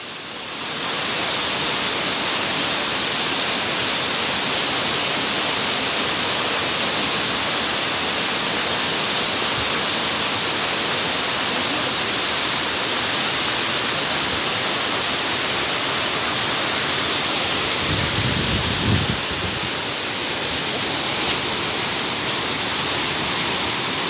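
Waterfall and cascading stream water rushing steadily, an even hiss of falling water. A brief low rumble comes about three quarters of the way through.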